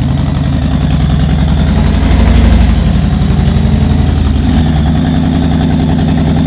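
Custom bagger motorcycle's V-twin engine running at low revs as it is ridden slowly. It swells briefly in loudness about two seconds in, then settles back to a steady idle.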